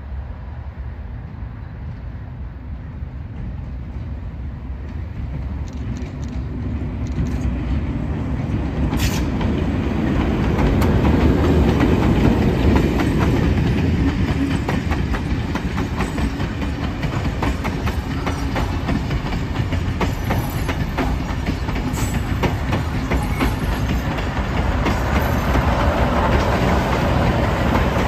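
Train running along the rails, growing louder over the first twelve seconds and then holding steady, with wheels clicking over the rail joints.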